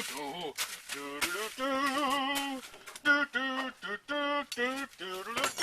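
A man singing a wordless tune to "do do do" syllables: a string of held notes, some with a wavering pitch, separated by short breaks.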